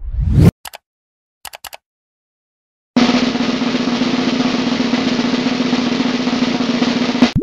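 Swoosh sound effect and a few short clicks, then after a pause a steady snare drum roll lasting about four seconds, the kind used as a suspense effect before a reveal.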